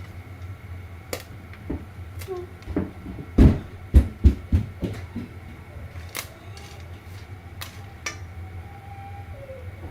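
Kitchen clatter: scattered knocks and clinks of dishes and utensils, with a quick run of heavy thumps a little past the middle, over a steady low hum.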